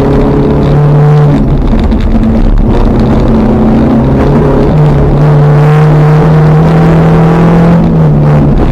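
Toyota Rav4's 3S-GE four-cylinder engine heard from inside the cabin, running loud under load at fairly steady revs. Its note drops a little about a second in and rises again near five seconds.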